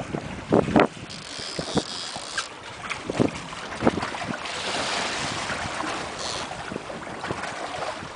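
Wind buffeting the microphone over the wash of the sea against a small boat, with a few short knocks in the first half and a longer swell of rushing water around the middle.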